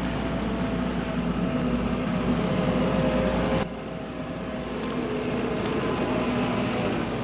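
A motor or engine running steadily with a humming drone, its loudness dropping abruptly about three and a half seconds in.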